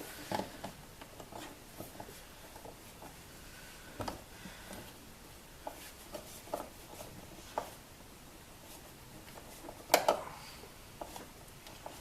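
Hand-work noises while fitting a car's plastic glove box and its retaining screws: scattered light clicks, taps and rubbing of plastic and tools, with one sharper, louder knock about ten seconds in.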